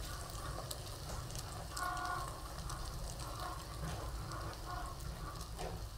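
Pre-grilled chicken sizzling inside a sealed foil packet under a Cricut EasyPress 2 heat press: a quiet, steady hiss with fine crackles.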